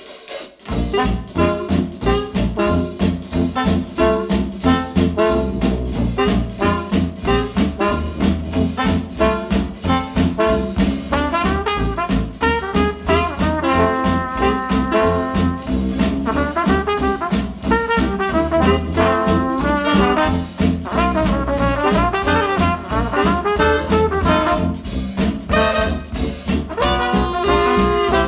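Trad-style jazz with brass horns over a steady swinging beat, played back through Wharfedale Diamond 12.2 bookshelf speakers. It starts just after a brief moment of silence at the track change.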